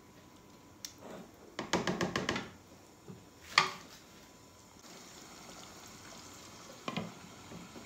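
Silicone spatula stirring thick chicken gravy in a nonstick pot, with a quick run of knocks against the pot and a sharp tap about three and a half seconds in. A faint steady hiss follows, then the glass lid is set on the pot near the end with a short knock.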